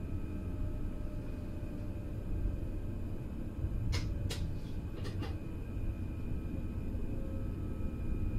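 Steady low rumble of an NS Flirt electric train heard from inside the driver's cab, with faint steady tones over it. A few short sharp clicks come about four to five seconds in.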